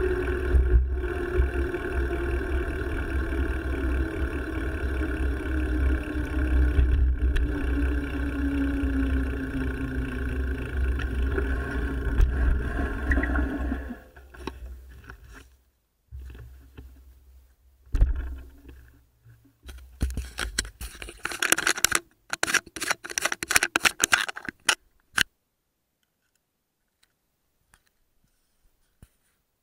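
Steady rumbling ride noise from a mountain bike ride, then, about halfway through, several seconds of broken scraping and rubbing noises before the sound cuts off.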